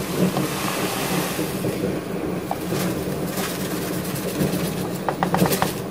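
Wooden spoon stirring cane-sugar syrup in a metal pot over a steady hum and hiss, with a quick run of light taps about five seconds in.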